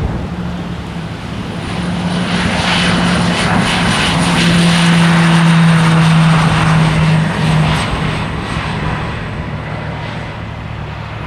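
Small propeller airplane's engine drone passing by, growing louder to a peak about halfway through and then fading away. Wind buffets the microphone at the start.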